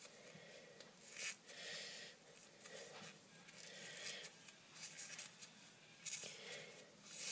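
Faint rustling and scraping from hands working small materials, in several short bursts, as a piece of sponge is pushed and squeezed into an emptied pen barrel.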